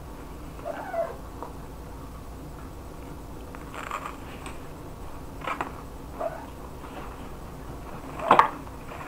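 Toast being bitten and chewed close to the microphone: a few sharp crunches about four, five and a half and eight seconds in, the last the loudest.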